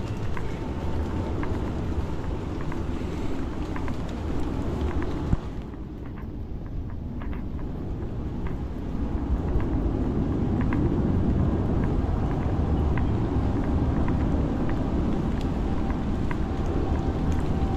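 Outdoor ambience in rain: a steady low rumble with scattered light ticks, growing a little louder about nine seconds in.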